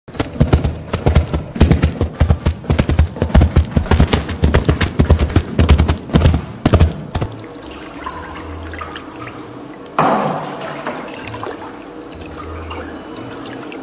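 Foley galloping hoofbeats: two handled tools pounded in a fast, uneven rhythm on a tray of dirt and straw, lasting about seven seconds. About ten seconds in comes a splash as a wooden board is dipped into a tub of water, then water trickling and dripping off it, as a canoe-paddle effect.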